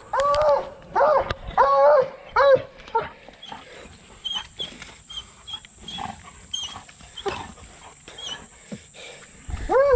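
Tracking dog yelping excitedly as it worries a downed buck: about five rising-and-falling yelps in the first three seconds, then quieter scuffling and rustling in the leaf litter and mud, with the yelps starting again right at the end.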